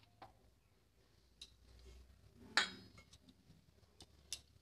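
A few faint clinks and taps against a stainless steel mixing bowl as flour and oil are mixed in it by hand. One louder clink with a short metallic ring comes about two and a half seconds in.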